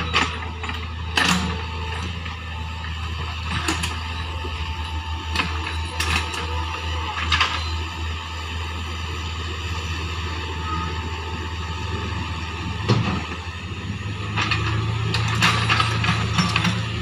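Hitachi mini excavator's diesel engine running steadily as the machine travels on its tracks, with sharp metallic clanks every few seconds. The engine note grows louder about fourteen seconds in.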